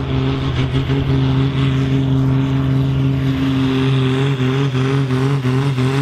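Ford TW-25 tractor's six-cylinder diesel engine running hard at high revs under heavy load while pulling a weight-transfer sled. The engine pitch holds steady, wavering slightly in the second half.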